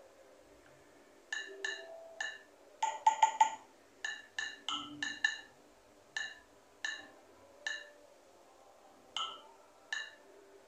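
A marimba-like tune from a mobile phone's speaker: short plinking notes in an uneven melody, each dying away quickly, with a quick run of four notes about three seconds in.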